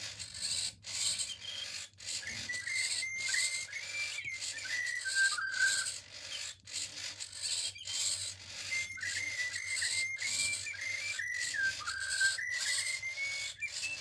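Joy for All Walker Squawker robotic bluebird singing its electronic birdsong: two phrases of whistled warbling notes that step up and down in pitch. The bird is in singing mode, set off by the swing's magnet and kept going by the swing's motion. Under the song runs a hissing rasp broken by short regular gaps.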